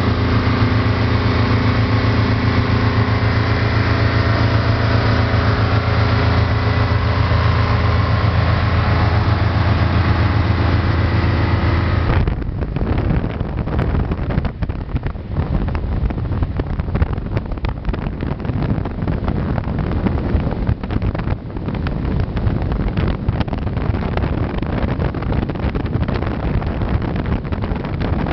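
Motorboat engine running steadily at speed. About twelve seconds in it changes abruptly to wind buffeting the microphone, with no clear engine tone, as the boat moves along the river.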